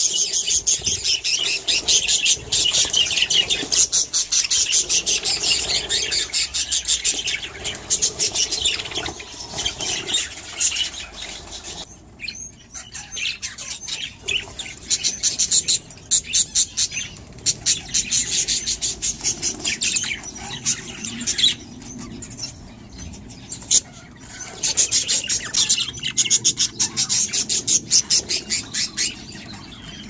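A flock of budgerigars chattering and chirping in rapid, continuous warbles, dropping off briefly twice.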